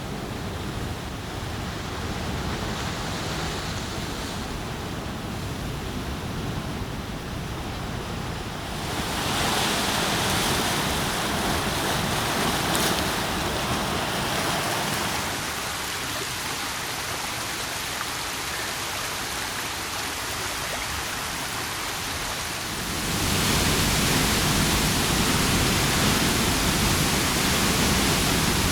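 A sequence of natural water and wind field recordings, a steady rush of noise like a stream, waterfall or surf. It changes character abruptly about a third of the way in, again around halfway and about three quarters through, where it becomes louder and brighter.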